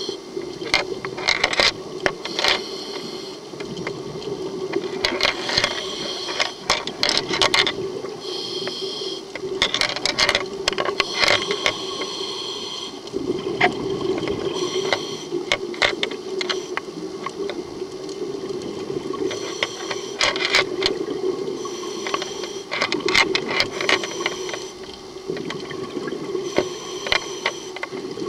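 Underwater recording of a scuba diver breathing through a regulator: bursts of crackling exhaust bubbles every four to five seconds over a steady low hum.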